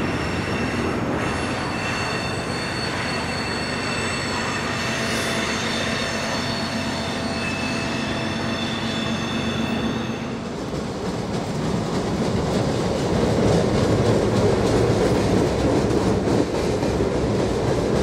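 Freight train passing. Its steel wheels squeal in several steady high tones until about ten seconds in. Then the squeal stops, and the rolling noise and clatter of the cars grow louder.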